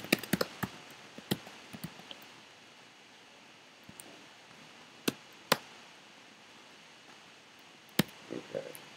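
Computer keyboard keystrokes: a quick run of clicks in the first two seconds, then a few single key presses spaced seconds apart.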